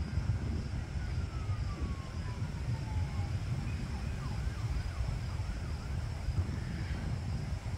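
Wind buffeting the microphone outdoors, a gusting low rumble. Over it, a faint whine falls slowly in pitch during the first few seconds, and a faint steady high note runs throughout.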